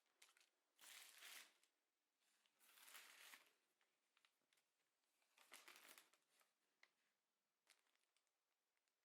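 Faint rustling, crinkling handling noise in three short bursts, with a few small clicks between them.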